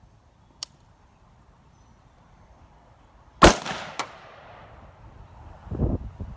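A single AR-15 rifle shot about three and a half seconds in, loud and sharp with a fading echo tail. A faint sharp click comes about half a second in, a shorter crack follows the shot by about half a second, and a low dull thump comes near the end.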